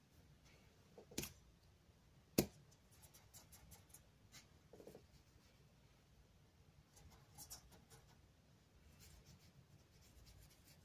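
Faint scratchy strokes of a paintbrush laying a watercolour wash onto acrylic paper, with two sharp clicks about a second and two and a half seconds in.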